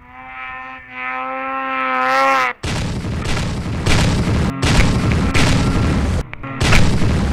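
Snowmobile engine running at high revs with a steady, slightly rising pitch, then a loud rough rumble of engine and snow on the sled-mounted microphone as the machine ploughs through deep powder, cut off abruptly several times.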